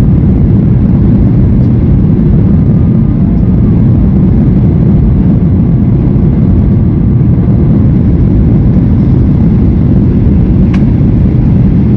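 Steady, loud, low rumble of a Boeing 737 in flight as heard inside the passenger cabin: engine and airflow noise during the descent to land. A single short click sounds near the end.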